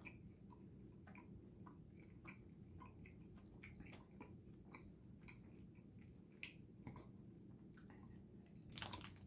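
Faint chewing of a chili-coated tamarind gummy candy: soft, irregular wet clicks of the mouth working the gummy, with a slightly louder burst near the end.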